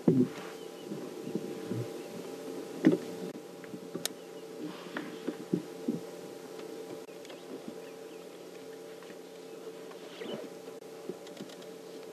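A steady low hum with scattered dull knocks and thumps over it; the two loudest knocks come about a quarter second in and just before three seconds in.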